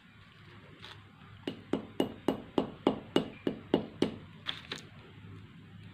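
A steel cylinder tapping roasted tamarind seeds against a newspaper-covered floor, about a dozen sharp knocks at roughly three a second, to crack and loosen their husks. The knocks start about a second and a half in and stop near the end.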